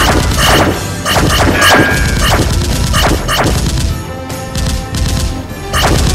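Loud soundtrack music with sleigh bells and a heavy beat, mixed with sharp crashing hits from gunfire and explosion sound effects. The music eases for a moment about two-thirds of the way through before another burst of hits near the end.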